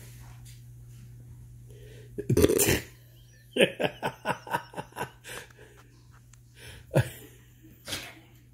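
A person laughing hard: one loud outburst, then a quick run of about eight 'ha-ha' pulses, roughly four or five a second and fading, with two more single laughs near the end.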